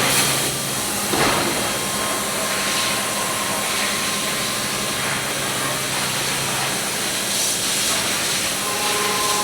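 CNC machine running with a steady hiss over a low hum and a faint higher whine, with a light knock about a second in.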